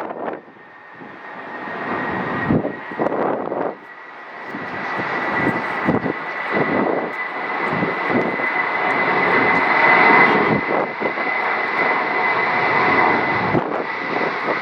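Airbus A320-232's IAE V2500 turbofan engines at takeoff power, a wide jet roar with a steady high whine, building to its loudest about ten seconds in and then easing slightly.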